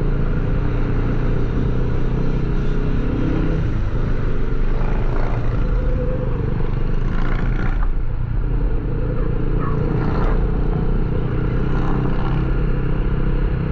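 A small engine running steadily at an even speed, with a steady hiss over it.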